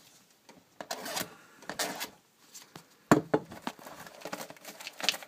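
Plastic packaging of a hockey card pack being wrestled open: short bursts of rustling and crinkling, with one sharp crack about three seconds in followed by a run of crackles.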